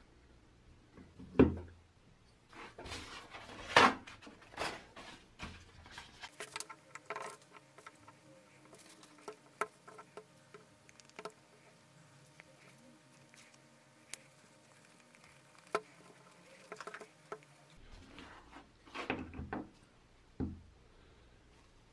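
Gloved fingers scraping and wiping thick old grease out of the metal gear housing of an old Black & Decker electric drill: soft rustling and sticky handling noises with scattered clicks and taps of metal parts, and two sharp knocks in the first few seconds.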